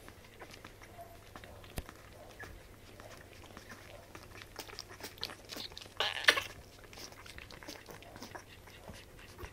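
Newborn Pembroke Welsh corgi puppies suckling at their mother's teats: soft, irregular clicking, with a sharp click a couple of seconds in and a brief louder noise about six seconds in.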